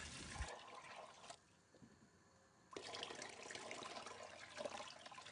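Water poured from a jug into a stainless steel pot of soaked chickpeas, a faint splashing pour in two stretches with about a second of near silence between them.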